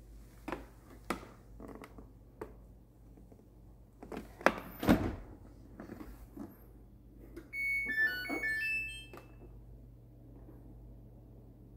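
A built-in Samsung dishwasher being opened and switched on: light clicks and two loud thunks as the door and latch are handled, then a short electronic start-up tune of several beeps from the control panel.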